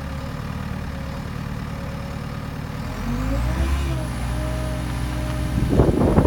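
JCB 260W skid steer loader's diesel engine running steadily, then revved up about three seconds in and held at a higher speed, with a faint high whine rising with it. Near the end comes a burst of clattering knocks.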